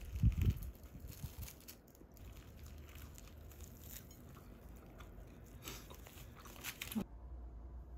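Someone biting into and chewing a sandwich wrapped in cling film, with faint crackly crunches and crinkles. A soft low thump in the first half second is the loudest sound, and it all stops abruptly about seven seconds in.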